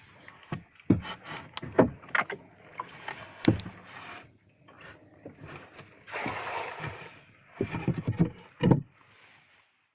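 Water splashing and sloshing with irregular sharp knocks and clatters, with a longer stretch of sloshing about six seconds in: someone moving about in shallow river water while catching shrimp.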